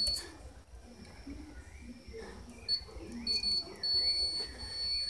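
A multimeter's continuity beeper gives a steady high beep as its probes touch a compressor's terminal pins: a short beep, a couple of brief ones, then a continuous tone through the second half. The beep signals continuity through the low-resistance motor winding between the pins.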